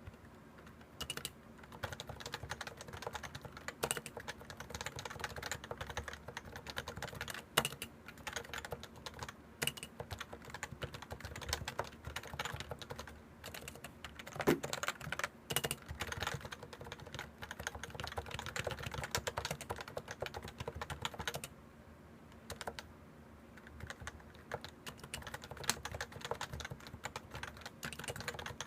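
Continuous typing on a Topre Realforce 87u keyboard: 45 g electrostatic capacitive keys with unlubricated stock sliders and PBT keycaps, giving dense runs of soft keystrokes with a few louder single strokes. The typing stops briefly about three quarters of the way through, then resumes.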